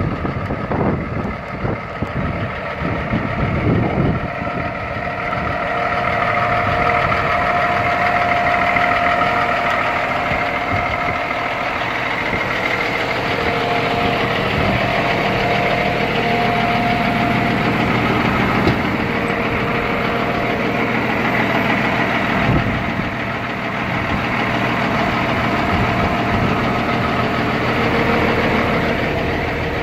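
Diesel engine of a 2010 Peterbilt 387 semi tractor idling steadily.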